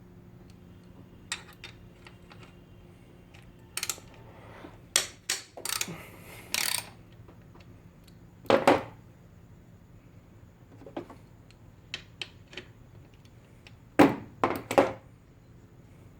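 Metal clinks and knocks of a ratchet and E10 Torx socket being worked on the oil filter housing's retaining screws, coming in scattered bursts with quiet gaps, the loudest clanks about halfway through and near the end.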